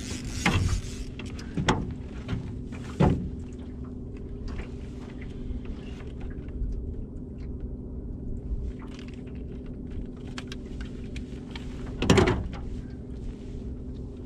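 Steady hum of an electric trolling motor pushing a small metal boat, with three knocks on the boat's metal hull in the first three seconds and a louder one about twelve seconds in as the angler moves about and handles his gear.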